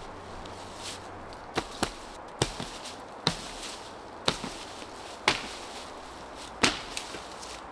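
A series of sharp knocks, some with a smaller knock right after, coming irregularly about once a second over a faint steady background.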